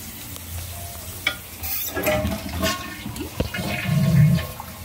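Toilet flushing and its tank refilling, water rushing with a low rumble and a few short knocks, swelling louder about four seconds in. The toilet is being run to test newly replaced tank bolts and washers for leaks.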